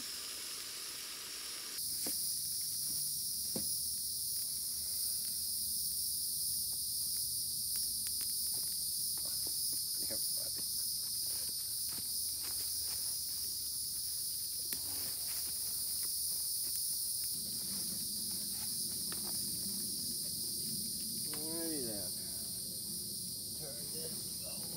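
Steady, shrill chorus of insects in the woods, setting in abruptly about two seconds in, with scattered light clicks and snaps throughout.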